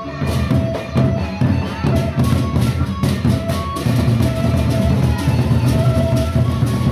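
Gendang beleq ensemble playing: several large double-headed barrel drums beaten with sticks in a fast, dense interlocking rhythm, with clashing hand cymbals. Short held melodic notes come in and out above the drumming.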